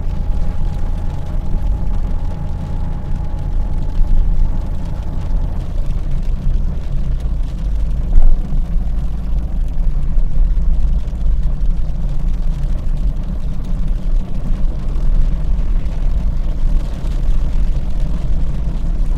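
Steady low rumble inside a moving car's cabin: engine and tyres on a wet road. A faint steady whine runs through the first five seconds or so, and there is a brief thump about eight seconds in.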